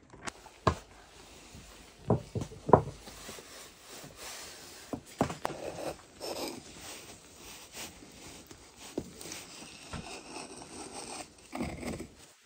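Scattered sharp knocks, several close together a couple of seconds in, with scraping and rubbing between them.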